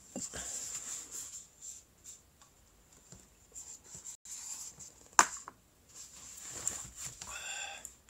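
Paper tissue handled close to the microphone, with short rustling and breathy noises, a sharp click about five seconds in, and a brief honking nasal sound near the end.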